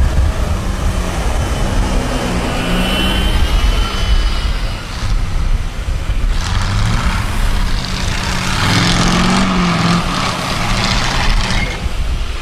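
Off-road competition trucks' engines revving hard under load, the pitch repeatedly rising and falling as they push through mud and up a steep dirt bank.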